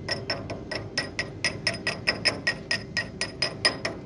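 Hammer striking steel in rapid, even blows, about five a second, each ringing with a metallic tone; a short break comes near the end. On a boom being welded this is typical of knocking slag off or working the welded steel.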